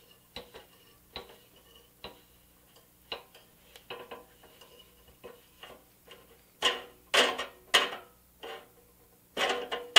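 Small steel C-clamp being screwed down by hand to crimp a rivet on a toy truck's steel body: a string of sharp metal clicks and clinks, about one a second at first, louder and closer together near the end.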